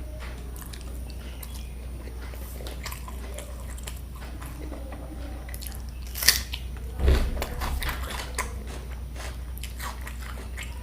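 Close-up eating sounds: a person chewing and biting, with small crunches of fried fish and fried potato, typical of a mukbang. About six seconds in comes a sharp click, and just after it a heavier thump, the loudest sound, over a steady low hum.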